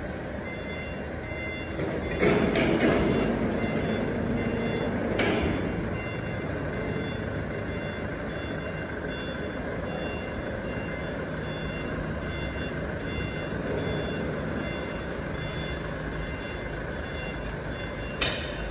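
A high electronic warning beeper repeats at an even pace over steady factory machinery noise. A few sharp metallic knocks come about two seconds in, about five seconds in and near the end.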